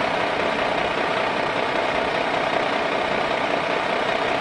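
Engine idling steadily with an even, rumbling noise, likely a sound effect of a truck engine.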